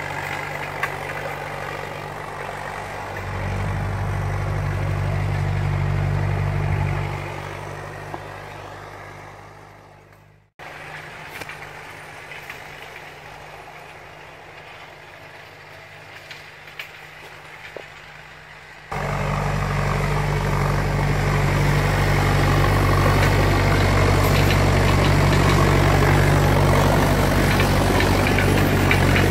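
Old farm tractor's engine running steadily under load as it pulls a spring-tine cultivator through tilled soil. Loud and close at first, it fades away and cuts off abruptly about ten seconds in, comes back fainter and distant, then turns loud and close again from about nineteen seconds.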